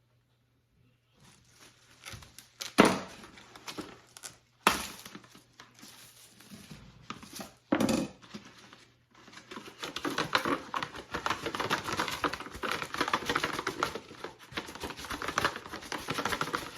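Plastic wrap being handled: rustling and crinkling, dense and continuous through the second half. Earlier there are three sharp knocks, like kitchen things being set down.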